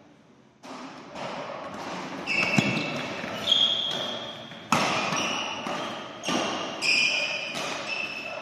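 Badminton rally: rackets striking the shuttlecock in a quick exchange of sharp hits, each echoing in the hall, mixed with short high squeaks of shoes on the court floor.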